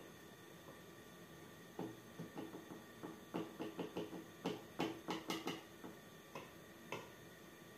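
Silicone spatula knocking and scraping against a plastic funnel while batter is worked through it into a plastic bottle: a run of light, irregular clicks and taps, busiest in the middle.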